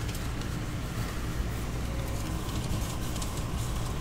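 Steady rumble of a moving passenger train heard inside the coach: wheels running on the rails and the car's running noise, with a few faint ticks.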